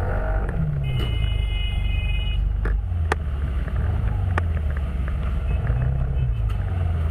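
Vehicle engine running with a loud, steady low rumble, its pitch rising about half a second in and rising and falling again near the end. A high steady tone sounds for about a second and a half starting about a second in, and a few sharp knocks come at about three and four and a half seconds.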